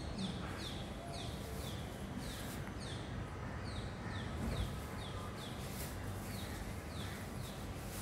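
A bird calling over and over in short, high notes that each drop in pitch, about two a second, over a steady low background rumble.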